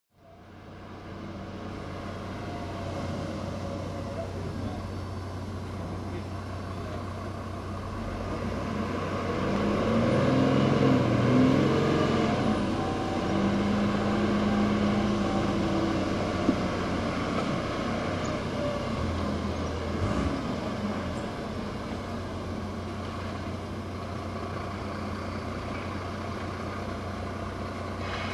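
Heavy diesel earthmoving machinery working: a steady low engine rumble, with an articulated dump truck's engine swelling loudest about ten to twelve seconds in as it comes along the haul road, then settling back.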